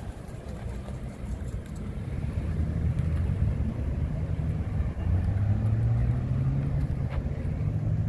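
A motor vehicle's engine running close by on the street: a low, steady rumble that builds from about two seconds in and is strongest in the second half.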